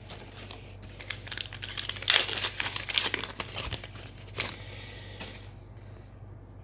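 Foil trading-card booster pack wrapper crinkling and being torn open, a dense run of crackles that is loudest in the middle and stops about a second before the end.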